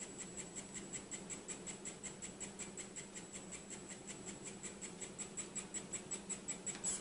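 Handheld 3D printing pen's filament feed motor running as it pushes ABS filament out of the hot nozzle: a rapid, even ticking about five times a second over a faint high whine. The ticking grows a little louder and cuts off near the end.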